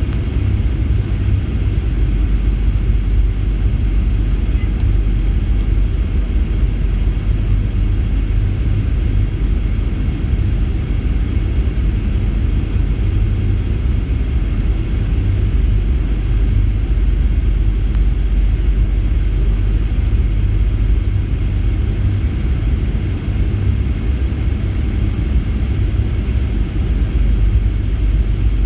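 Steady, even cabin rumble of a Boeing 737-800 in flight, heard from inside the cabin: engine and airflow noise, heaviest in the low end.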